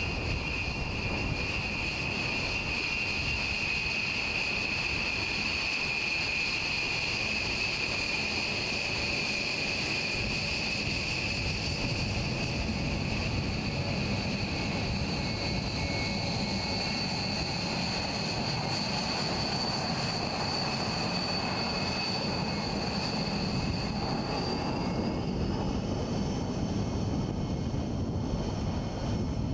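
Jet engines of a B-1B Lancer bomber taxiing: a steady high turbine whine over a low rumble. Near the end the whine rises in pitch.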